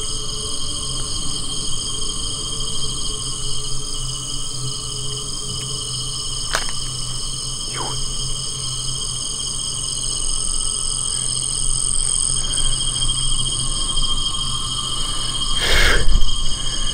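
Steady night chorus of insects: several high, shrill buzzing tones at once, one of them pulsing rapidly. Twice in the middle a short downward-gliding call cuts across it, and a brief noisy burst comes near the end.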